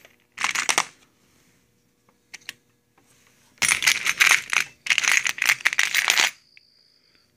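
Small metal sewing machine attachments and presser feet clinking and jangling against each other as a hand rummages through a box of them: a short burst about half a second in, a few light clicks around the middle, and a longer, louder run of jangling from just past halfway.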